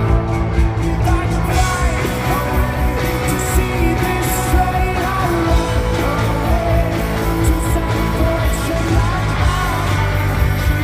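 Rock band playing live through a PA, with a singer's voice over the band.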